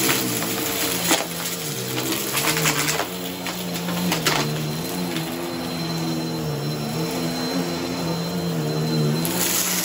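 Bagless upright vacuum cleaner running on a rug, its hum shifting up and down in pitch as it is pushed back and forth. Sharp clicks and rattles come from confetti and sequins being sucked up into the clear bin.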